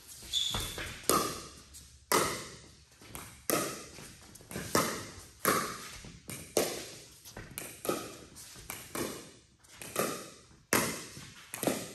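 Pickleball rally: a hard plastic ball popping off Paddletek Tempest paddles and bouncing on the court, a sharp pop roughly every half second to second. Each pop echoes briefly in the large hall.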